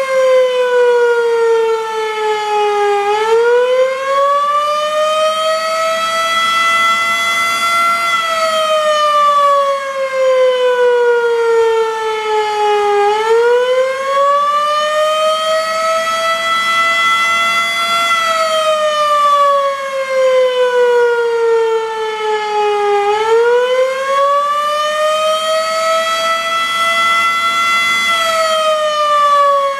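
Federal Enterprises Model 5 civil-defense siren sounding the attack signal: a loud wail that rises and falls slowly, about once every ten seconds.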